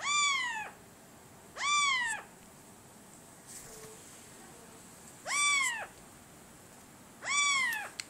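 Alexandrine parakeet imitating a cat's meow: four meows, each about half a second long, rising and then falling in pitch, with a longer gap after the second.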